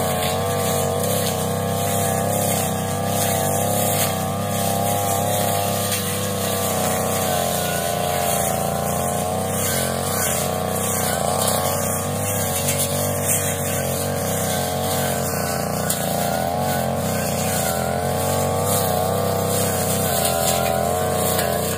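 Brush cutter engine running steadily at high speed while cutting grass, its pitch wavering slightly up and down as the load changes.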